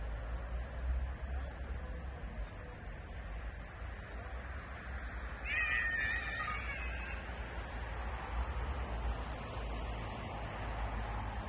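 A single wavering animal call lasting over a second, about halfway through, over a steady low rumble of wind on the microphone.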